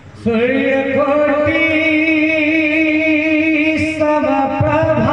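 Male voice singing the slow, unaccompanied-sounding aalap of a Malipali kirtan: after a brief hush, a long held melodic line with a wavering pitch starts about a quarter second in.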